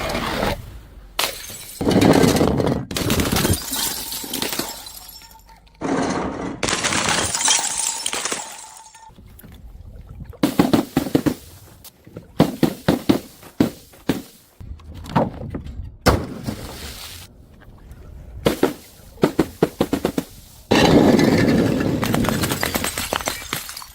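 Glass bottles smashing and things being crushed, in a string of short separate clips: sharp impacts, rapid crunching and stretches of shattering glass.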